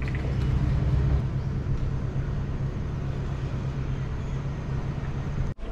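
Steady outdoor rumble and hiss from the open balcony: wind and distant town traffic. It cuts off abruptly near the end.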